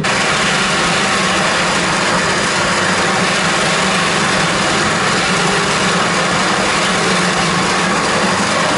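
Soviet Salyut (Penzmash SVPR-201) electric centrifugal juicer running at full speed, a loud steady whir with a low hum, as tomatoes are dropped in and grated to juice.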